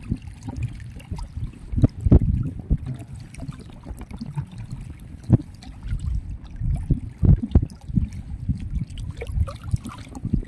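Shallow water lapping and sloshing among rocks at the water's edge, with irregular low knocks and splashes, the loudest about two, five and seven seconds in.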